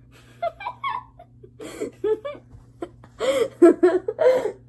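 Boys laughing and giggling in short bursts, the laughter getting loudest about three seconds in.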